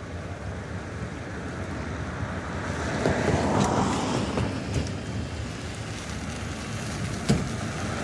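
Distant Atlas V rocket's RD-180 first-stage engine during ascent: a low, noisy rumble that swells about three seconds in, with a few sharp crackles, the loudest near the end.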